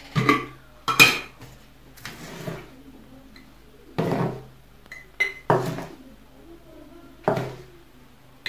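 Metal spoon scraping ground coffee off newspaper and clinking against the rim and glass of a small jar as the coffee is spooned in. It comes as several separate scrapes and knocks about a second apart, a few with a short ringing ping.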